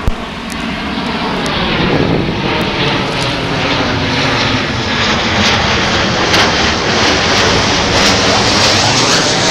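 Passenger plane flying low overhead: a loud, steady rush of engine noise that swells slightly, with faint tones gliding down and then up in pitch.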